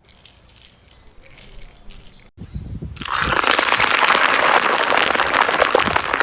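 Food frying in hot oil: a loud, dense crackling sizzle that starts about three seconds in, after a few faint handling sounds.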